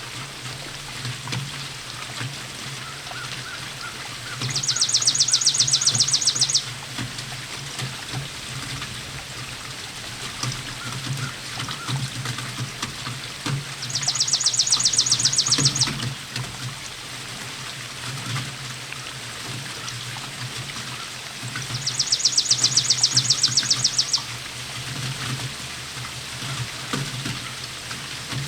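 Steady rainfall pattering and trickling, with a low steady hum underneath. Three times, a loud, high, rapidly pulsed trill of about two seconds each cuts in over the rain.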